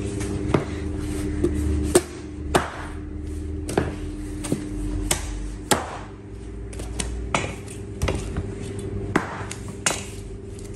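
Butcher's knife chopping through lamb and pieces of meat knocking down on a wooden cutting block: about a dozen sharp knocks at irregular intervals, over a steady low hum.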